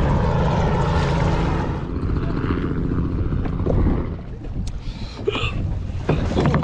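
Low, steady engine drone with wind on the microphone, which fades about four seconds in. Short knocks and splashes of water follow.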